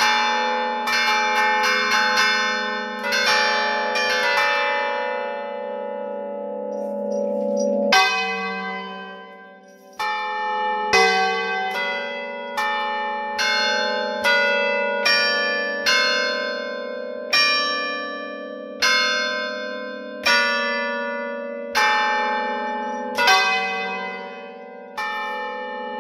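Tower church bells played by hand from a wooden-lever keyboard, each lever pulling a chain to a bell's clapper: a quick flurry of strokes, then the bells' ringing fades for a few seconds. From about eight seconds in a slower tune follows, one stroke about every second, each bell still ringing under the next.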